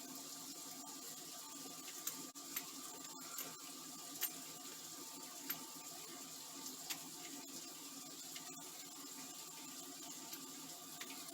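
Faint steady room hum and hiss, with a few light, sharp clicks and taps as the wire and the small parts of an extension-cord plug are handled.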